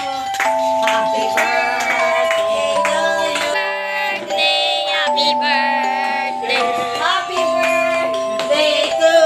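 Background music: a song with singing over held instrumental notes.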